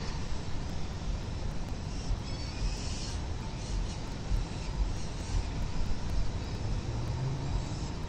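Steady low rumble of outdoor background noise on the nest microphone. Over it come faint high chirps, peregrine falcon chicks begging while being fed, about two to three seconds in and again around five seconds.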